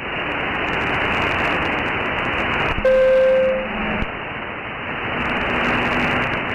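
CB radio receiver hissing with open band static between transmissions, with a brief steady whistle about three seconds in as a signal briefly keys up.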